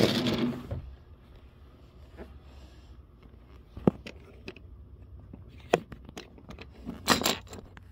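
Toy locomotive rolling briefly along a wooden train track as it is pushed, a short rumble that fades within the first second. After that the room is quiet apart from a few faint clicks and a short breathy burst near the end.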